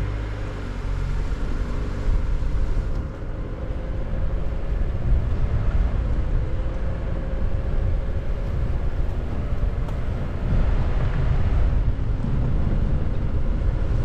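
Car driving, recorded by a camera attached to the car: a steady low road rumble with a faint engine tone that wavers slightly, getting a little louder about ten seconds in.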